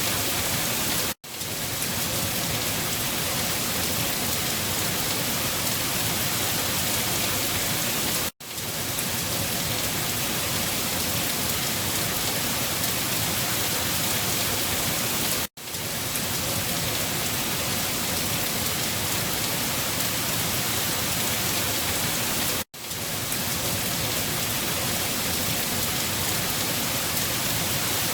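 Steady, dense rainfall, an even hiss of many drops. It cuts out for an instant four times, about every seven seconds, where the recording loops.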